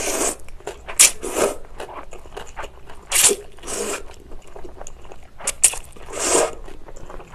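Chewy jjolmyeon noodles slurped up from spicy broth in short, loud pulls, about six in three pairs, close to the microphone.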